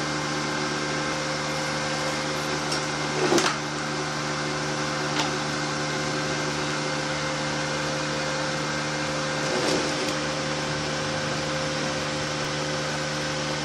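Cooling fan of a powered-up Rhino MMA-120A inverter welding machine running with a steady hum and whir. Two brief knocks sound over it, one a few seconds in and a fainter one near the end.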